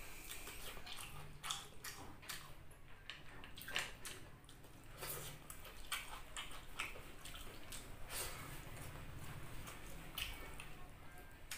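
Close-up wet eating sounds: chewing with lip smacks and fingers squishing rice in coconut-milk sauce, many short sticky clicks throughout.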